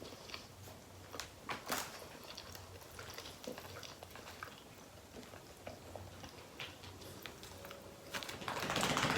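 A person chewing food close to the microphone: soft, irregular mouth clicks and smacks.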